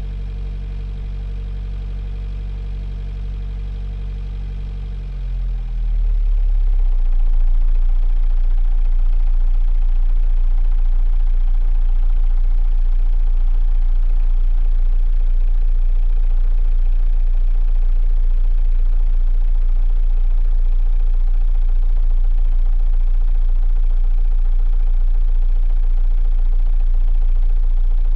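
A 45 ft sailboat's inboard diesel engine running steadily, heard from inside the rear cabin. About five seconds in, its pitch slides down and it settles into a lower, louder, steady run with a strong low rumble.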